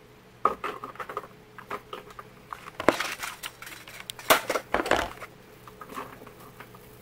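Handling noise from a camera being picked up and repositioned: a run of clicks, knocks and rubbing starting about half a second in, with the sharpest knocks about three and four seconds in.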